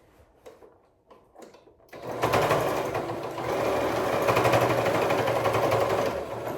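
Overlock sewing machine (serger) stitching fabric. It starts about two seconds in after a few light clicks and then runs steadily at full speed with a fast, even stitch rhythm.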